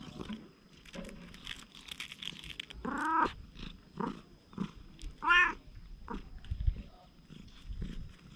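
A cat meowing twice, two short arching calls about two seconds apart, with faint rustling and clicks in between as it is stroked.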